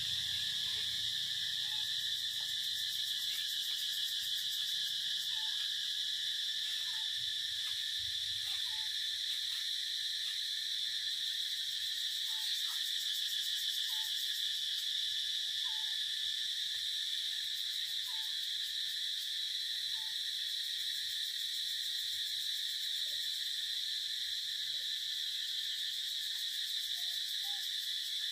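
Steady, high-pitched insect chorus, like cicadas, droning without a break, with faint short calls every second or two that become fewer after the first two-thirds.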